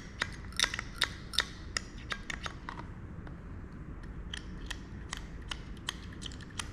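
Screwdriver tip scraping and clicking against the small metal battery contacts inside a trolling motor remote's battery compartment, scuffing corrosion off them. It makes irregular little scratches and ticks, several a second.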